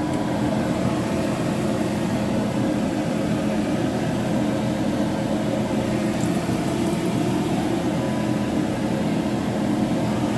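A steady mechanical hum with a few level low tones, over a light hiss of breaded chicken strips frying in hot oil in a pan.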